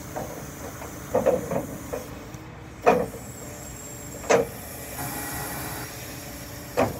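Sharp metallic clunks, about four of them, as the hydraulic outrigger legs of a Palfinger truck crane are raised and knock into their stowed position, over the steady running of the truck and its hydraulics.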